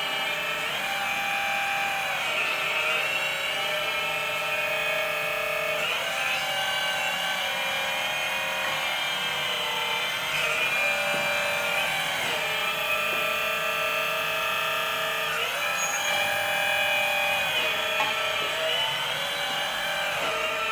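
Twin electric hydraulic pumps of a 1/12 metal RC excavator whining steadily as the boom, arm and bucket are worked, the pitch dropping and rising every few seconds as the controls are moved.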